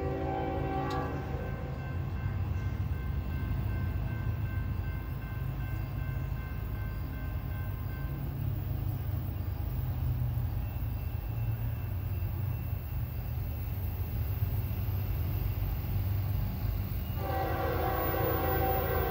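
Diesel locomotive air horn sounding briefly, then a steady low rumble, then the horn sounding again near the end as the train nears a grade crossing.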